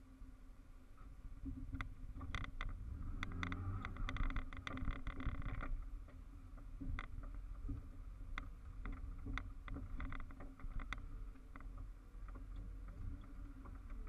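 Off-road vehicle's engine running low and steady while crawling over a rocky dirt trail, heard from inside the cab. Scattered knocks and clicks come through, with a louder stretch of crunching and rattling from about three and a half to six seconds in.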